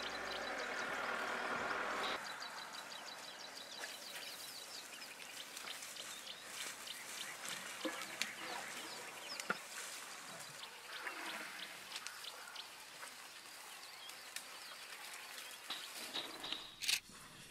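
Outdoor ambience of young elephants digging in sand: scattered soft clicks and rustles, with faint bird calls. A steady hum cuts off abruptly about two seconds in, and a sharp click comes near the end.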